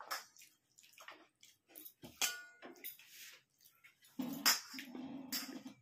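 Eating with the hands from stainless steel plates: wet squelching as fingers mix rice and pick up fried vegetables, with chewing and lip smacks. A short ringing clink of a steel dish comes about two seconds in, and a low hum, like a closed-mouth voice, starts about four seconds in.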